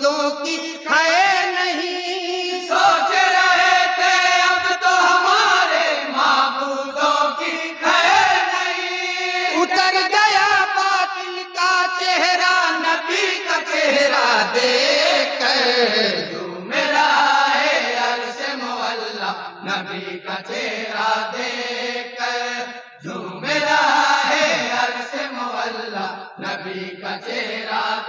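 Men's voices chanting an Urdu naat without instruments, in long, drawn-out lines that bend up and down in pitch.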